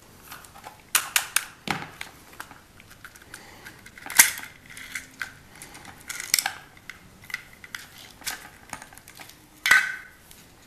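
Hands taking apart the plastic case of an X-10 appliance module with a screwdriver: irregular clicks, scrapes and knocks of plastic and small screws, the sharpest about four seconds in and again near the end.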